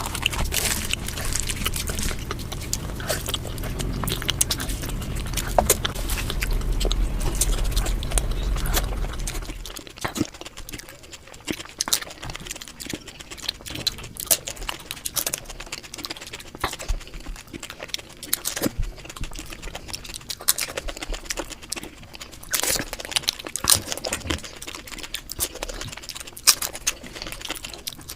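Chewing and crunching of Indian street snacks, a steady run of small sharp clicks and smacks. A low rumble lies under it and stops about ten seconds in.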